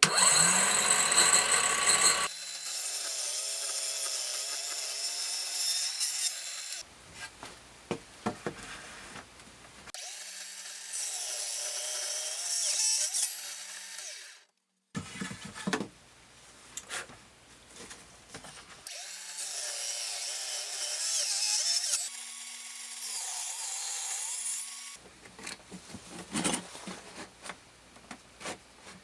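Power tools working wood in several separate stretches, each a few seconds long: a high cutting noise over a motor's whine, with quieter clatter between. The sound drops out completely for a moment about halfway through.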